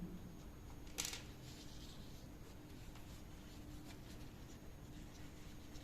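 Quiet handling of small electronic parts, a 9-volt battery and a relay: one light sharp click about a second in, then faint rustling, under a faint steady hum.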